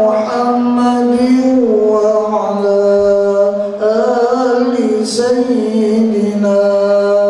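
Male voices chanting Islamic dzikir. It is a slow, melodic recitation sung in long held notes that slide from one pitch to the next, without pause.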